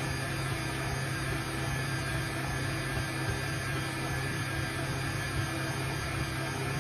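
Stand mixer motor running steadily at speed 4, kneading bread dough with its hook: an even hum with a faint high whine over it.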